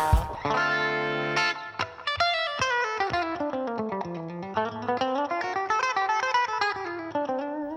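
Guitar music: a held chord, then a quick run of plucked single notes that falls in pitch and climbs back up.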